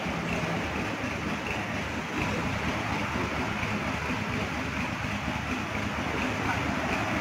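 A small cargo box truck's engine idling steadily: a low hum under a constant hiss of background noise.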